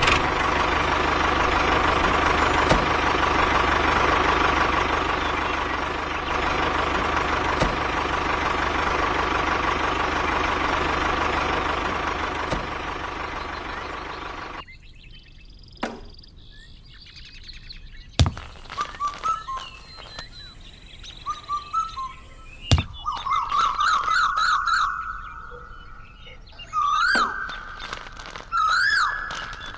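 A loud, steady noise that cuts off suddenly about halfway through. After it, birds chirp repeatedly, with a few sharp knocks.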